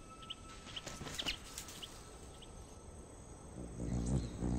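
A few short, high bird chirps. About three and a half seconds in, a louder low buzzing hum comes in: the wings of a volcano hummingbird hovering.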